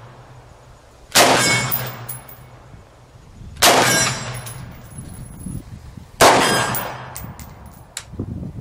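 IWI Tavor bullpup rifle in 5.56 firing three single shots about two and a half seconds apart. Each is a sharp report with a short echoing tail.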